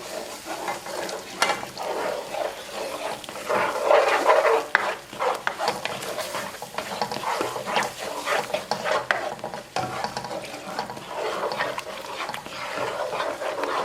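A utensil stirring white sauce in a pan, scraping over the pan's bottom again and again at an uneven pace while the milk and flour-and-butter roux sizzle lightly.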